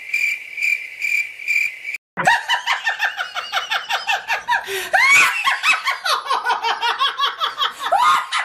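A high beeping tone pulsing about four times a second, which stops about two seconds in. Then rapid, high-pitched laughter, a dubbed meme laugh sound effect, runs on.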